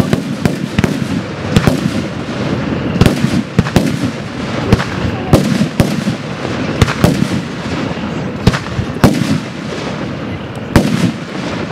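Aerial fireworks shells bursting in an irregular run of about twenty sharp bangs, each trailing off in a low rumbling echo.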